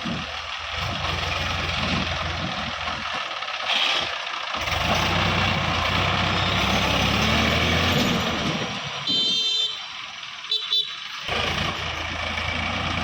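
Heavy diesel machinery running, then revving under load with a loud rushing noise for several seconds. About nine seconds in, brief high-pitched beeping tones sound, and a second short pair follows a second later before the engine settles back to a steady run.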